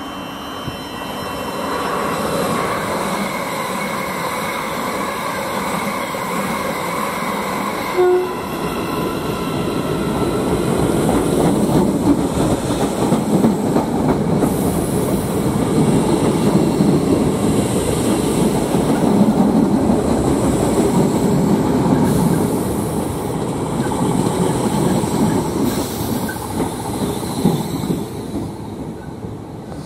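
Electric multiple-unit trains at a station platform. First a Class 387 approaches with a steady whine from its traction equipment. After a cut about eight seconds in, a Class 365 runs close past the platform with loud wheel and rail noise, which dies away near the end.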